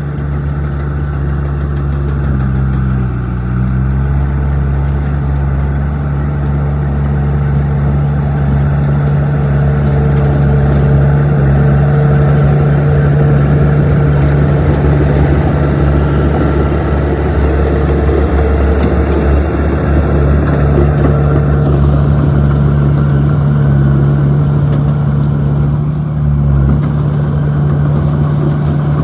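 Old bulldozer's diesel engine running steadily under work, its pitch dipping briefly about three seconds in.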